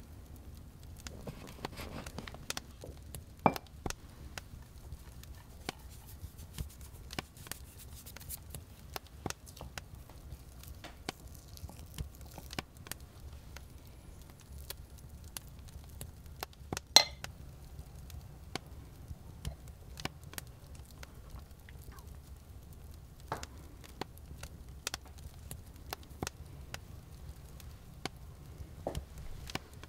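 Scattered light knocks, taps and clinks of objects being handled, irregular in time, with a sharper knock about three and a half seconds in and the loudest about seventeen seconds in, over a faint low steady hum.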